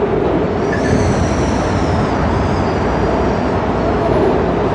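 Interior rumble of a WMATA Metro Breda rehab railcar running through a tunnel, a steady dense roar of wheels on rail. A thin high-pitched whine comes in about half a second in and dies away after about three seconds.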